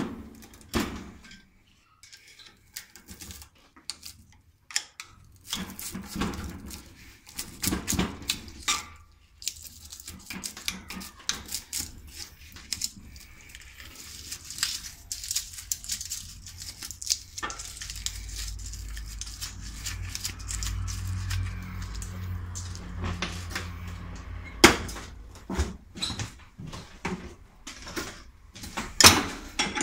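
Metal clinking, scraping and irregular knocks as a flat-bladed tool pries copper windings out of an electric motor's stator, with a low rumble for several seconds in the middle.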